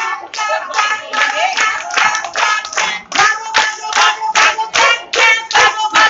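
A group of people clapping their hands together in a steady rhythm, about three to four claps a second, while voices sing along.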